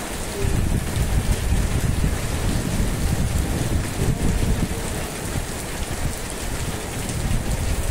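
Steady downpour of rain: a dense, even hiss with a low rumble underneath.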